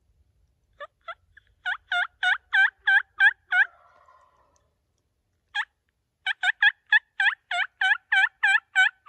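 Wild-turkey hen yelps sounded on a hunter's turkey call, loud and close: two soft notes, a run of about seven yelps, a single yelp, then a longer run of about a dozen, about three notes a second.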